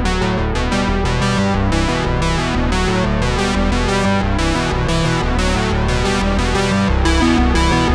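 Background music: keyboard and synthesizer melody with a steady, regular beat.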